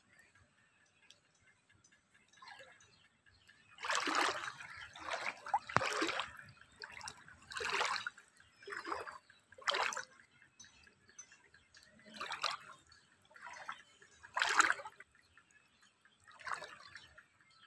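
Footsteps wading through shallow floodwater, a splash and slosh with each stride. They start about four seconds in and come roughly one every second or two.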